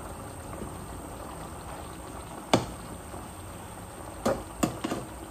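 Pot of chicken asado simmering with a steady bubbling hiss, broken by a sharp clink about two and a half seconds in and a quick run of three lighter knocks near the end.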